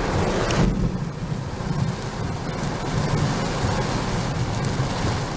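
Heavy rain and gusting wind of a tropical storm heard from inside a car, with a constant low rumble. The high hiss of the rain drops away sharply just after half a second in, leaving mostly the low rumble.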